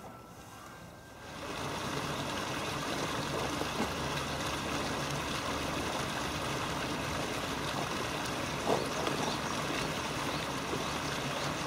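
Steady rushing of flowing river water, which rises sharply about a second in and then holds even.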